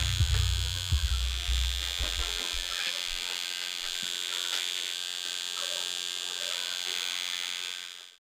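Small brushed DC motors, two of them coupled shaft to shaft, running with a steady high whine like an electric shaver. A low buzz underneath drops away about three seconds in, and the sound cuts off suddenly near the end.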